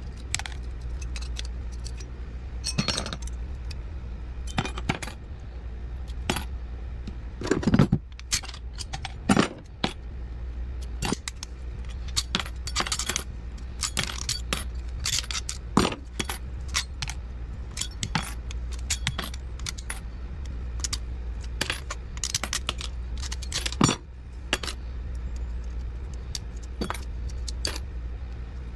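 Small steel transformer laminations, pliers and metal parts clinking and tapping on a work tray as a small transformer is pried apart by hand. Irregular sharp clicks and clatter, with a few louder knocks, over a steady low hum.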